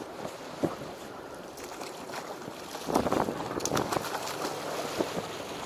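A hooked fish thrashing and splashing at the surface beside the boat, loudest from about three seconds in, over steady wind noise on the microphone and sea wash. A single sharp knock comes just under a second in.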